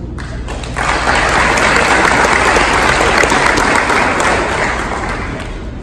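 Audience applauding: the clapping starts abruptly about a second in, holds steady, then tapers off near the end.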